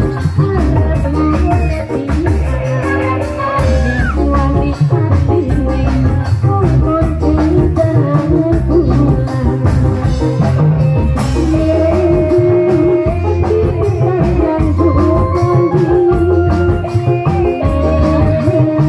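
Bendrong dangdut music from a reog troupe's band: drums keeping a steady beat under a melody with singing. From about eleven seconds in a long note is held over the beat.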